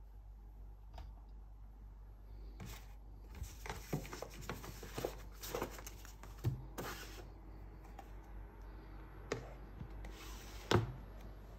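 Paper and plastic packaging rustling and rubbing as it is handled, with scattered light clicks and taps. Near the end, a sharper knock as the tablet is set down into its cardboard box tray.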